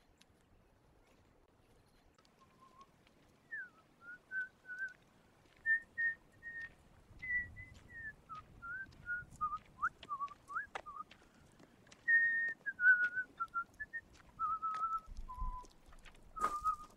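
A person whistling a tune, a run of separate notes that step and slide up and down, starting about two seconds in.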